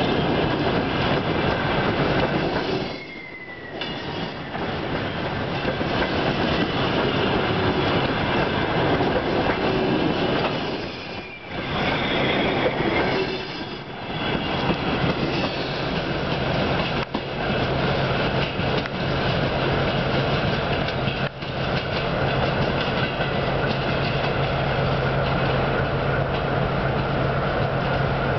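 Coaches of a departing passenger train rolling past at close range, a dense rumble and clatter of wheels on the rails with brief wheel squeals about three and twelve seconds in. From about seventeen seconds a steady low hum joins the rail noise, and two sharp clicks stand out.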